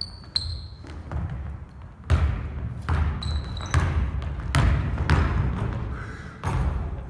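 Basketball dribbled hard on a gym's wooden floor, bouncing about once a second, a little faster during the drive. Sneakers squeak briefly on the floor near the start and again about three seconds in.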